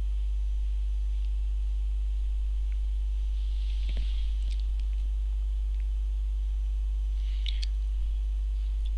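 Steady low electrical mains hum in the recording, with a few faint short clicks about halfway through and again near the end.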